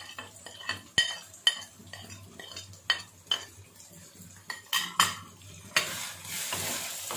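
A steel spoon clinks again and again against a ceramic plate and the rim of a steel karahi as salt is spooned in: sharp, ringing taps. About six seconds in, onions and ginger-garlic paste frying in oil begin to sizzle steadily as they are stirred with a wooden spatula.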